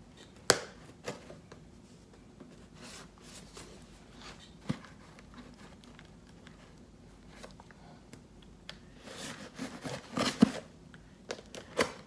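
A cardboard mailing box being opened with a knife: scattered scrapes and clicks as the blade cuts the tape, with a sharp click about half a second in. Near the end comes a flurry of tearing and crinkling as the box is pulled open.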